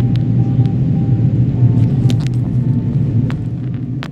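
Steady low rumble of cabin noise heard from a window seat of an Airbus A330-300 in flight: airflow over the fuselage and its two Rolls-Royce Trent 772B engines, with a few faint clicks.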